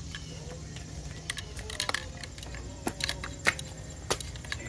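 Scattered light clicks and knocks from a camera being handled and repositioned, with a cluster of clicks about two seconds in and more near three and a half seconds, over a steady low rumble.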